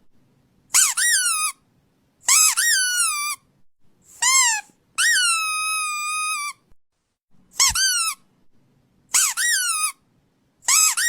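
Squeaky dog toy squeezed again and again: about seven squeaks, each rising then dropping in pitch, with a long one held for about a second and a half near the middle.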